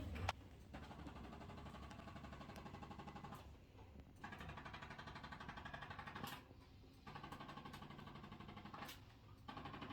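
Electric chiropractic adjusting instrument of the ArthroStim type used in the Koren Specific Technique, pulsing rapidly against the body during an adjustment. It runs in four spells of about two seconds each with short pauses between, after a sharp click at the very start.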